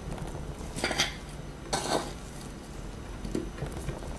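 A metal spoon scraping and clinking against a plate of food, twice: about a second in and again just before two seconds, then a faint knock later.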